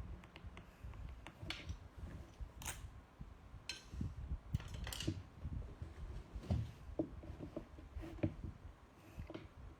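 Mechanical keyboard being typed on: uneven runs of keystrokes with short pauses, a few clacks sharper than the rest.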